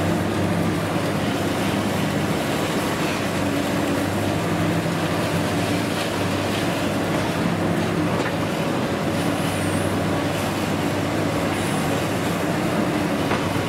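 Diesel engine of a long-reach demolition excavator running steadily while it pulls down a concrete building, with rubble crumbling and falling.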